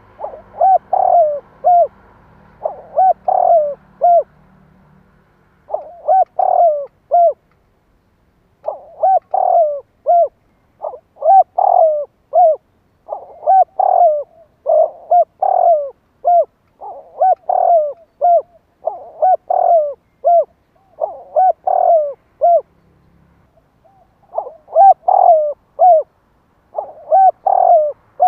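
Spotted dove cooing: short phrases of three or four coos, repeated every second or two with a couple of brief pauses. This is the male's territorial call, played to draw wild doves.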